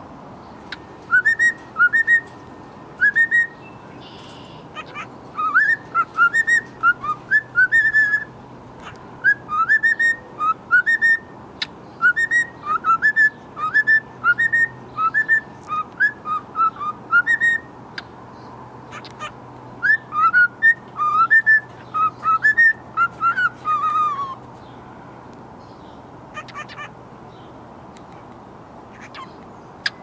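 Cockatiel whistling a song of short rising notes in quick succession, ending about three-quarters of the way through with a longer falling note; a few short chirps follow near the end.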